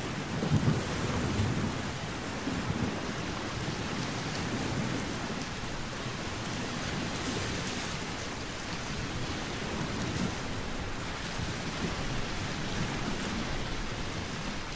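Sea-and-wind ambience: a steady rushing noise of waves with a low rumbling swell, briefly louder about a second in.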